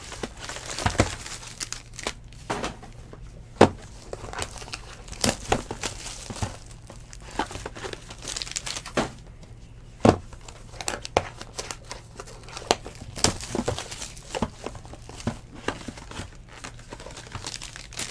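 Plastic shrink wrap being torn and crumpled off a trading-card box: irregular crinkling with many short, sharp crackles and taps.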